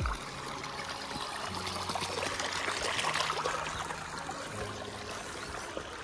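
Water trickling along a shallow irrigation channel, a steady running sound that grows louder around the middle.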